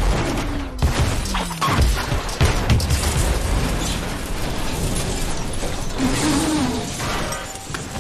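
A car crashing and rolling over, as mixed for a film: a run of heavy impacts and scraping with deep rumble, loudest in the first three seconds and then easing off.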